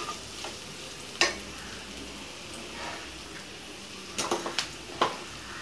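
Chopped onion and green chillies frying in oil in a nonstick pan with a faint steady sizzle, while a wooden spatula knocks and scrapes against the pan: one sharp click about a second in and a quick run of four near the end.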